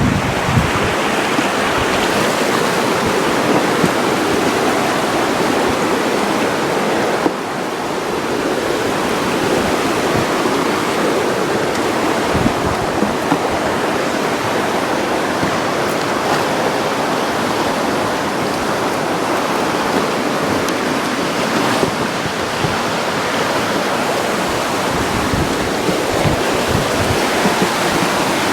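Steady rush of flowing river water over rapids, with a few brief low bumps on the microphone.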